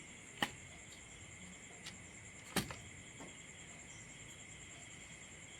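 A few sharp clicks from an air-conditioner control board's sensor plug being pulled and its relay switching off once the sensor signal is lost. The loudest click comes about two and a half seconds in, over a faint steady high-pitched hiss.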